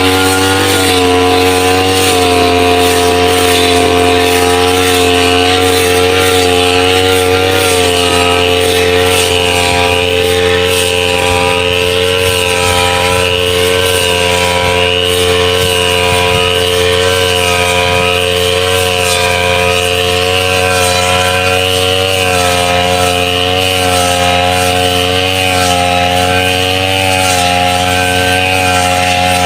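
Small brush cutter engine running steadily, its pitch wavering slightly now and then.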